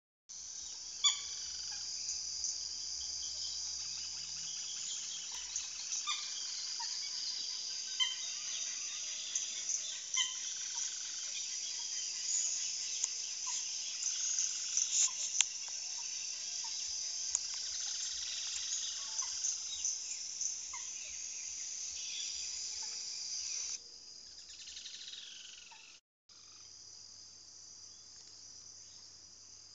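Steady high-pitched insect chorus, with birds calling in short notes every second or two. Near the end the sound turns quieter and breaks off for a moment.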